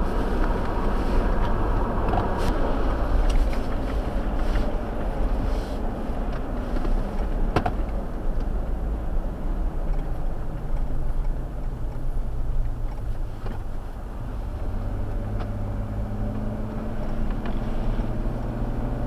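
Jeep Wrangler Rubicon driving while towing a trailer: steady engine and road noise. One sharp knock comes about seven and a half seconds in, and the engine note rises a little near the end.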